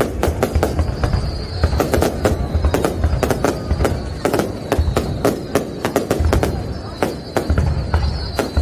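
Aerial fireworks going off in rapid, irregular succession, many sharp bangs a second, with a thin high whistle heard over them.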